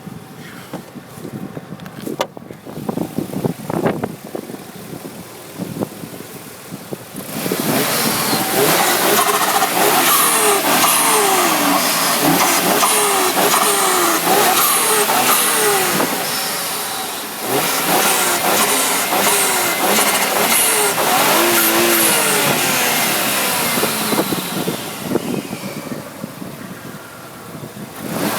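Audi B5 S4's twin-turbo V6, fitted with an aftermarket exhaust, giving a few short revs, then running loud from about seven seconds in with its pitch dropping again and again, before fading near the end.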